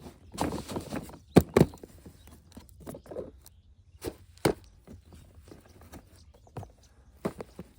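Irregular sharp knocks and clicks of toys and packaging being handled, with brief rustling between them; the loudest knocks come about one and a half seconds in and again near the middle.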